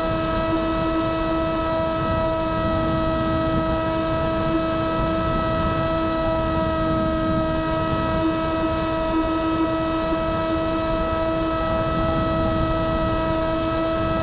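An FPV flying wing's electric motor and propeller running with a steady, high-pitched whine, heard from on board, over a low rushing noise.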